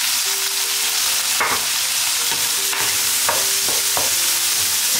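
Diced vegetables and ham sizzling in hot oil in a pan while being stir-fried. A steady frying hiss runs throughout, broken by a handful of sharp scrapes and knocks of the stirring utensil against the pan.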